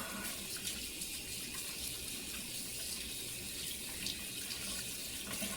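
Kitchen tap running steadily into a sink while hands are washed under it. The water stops at the very end.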